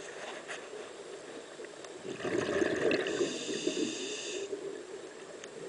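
Scuba regulator breathing heard underwater: about two seconds in, a loud rush of exhaled bubbles, then a high whistling hiss from the regulator that cuts off suddenly about a second and a half later, over a steady underwater wash.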